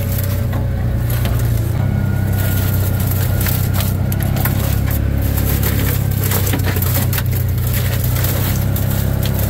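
Side-by-side UTV engine running steadily at low, even revs while driving a rough bush trail, with frequent knocks, rattles and brush scraping against the machine.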